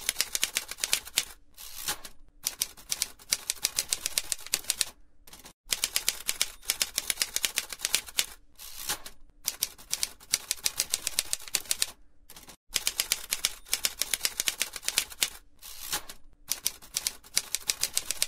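Typewriter keys clacking in quick runs, a typing sound effect, broken by a few short pauses and stopping abruptly at the end.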